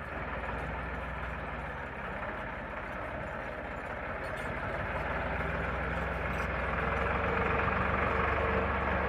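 Massey Ferguson 260 turbo tractor's diesel engine running steadily, growing louder about halfway through as the tractor comes closer.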